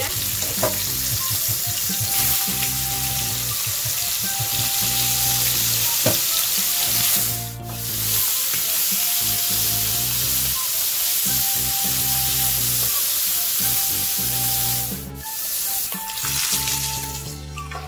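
Chunks of pork belly searing in very hot oil in a frying pan: a steady, loud sizzle that drops away briefly twice, about halfway through and again near the end.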